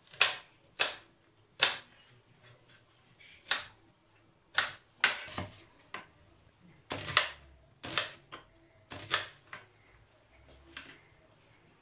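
Kitchen knife chopping an onion on a plastic cutting board: slow, uneven taps of the blade striking the board, about a dozen in all.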